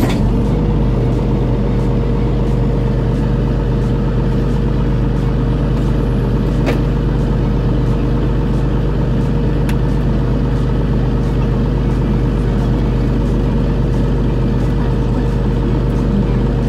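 Bus engine running steadily at idle, heard from inside the cabin: an even, unchanging low hum with a held higher tone over it.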